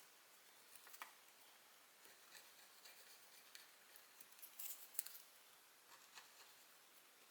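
Near silence with faint scattered clicks and light scrapes of small hand tools and parts being handled, the sharpest click about five seconds in.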